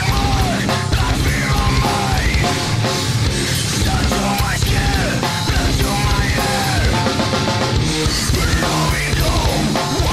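Loud rock music with a steady drum beat and bending melodic lines over it.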